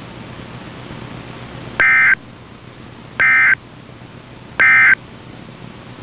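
Three short, identical bursts of warbling digital data tones from a NOAA Weather Radio broadcast, evenly spaced about a second and a half apart over a steady radio hiss: the EAS/SAME End-of-Message code, which closes the weekly test.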